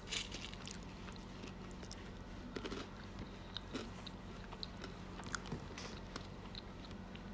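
Faint chewing, with small crunches and clicks every second or so close to the microphone, over a steady low electrical hum.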